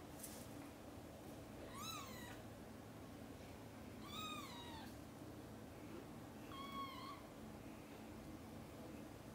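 A cat meowing three times, short high-pitched meows about two seconds apart, each rising then falling in pitch.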